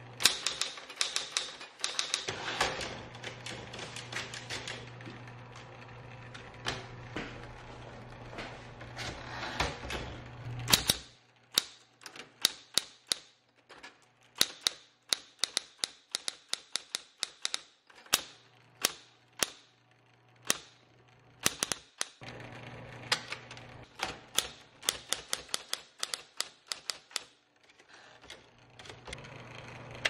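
Smith-Corona Coronet Automatic 12 electric typewriter being typed on: quick runs of sharp typebar strikes and slower single strikes, over the low hum of its motor. The hum fades for several seconds a little over a third of the way in, then returns.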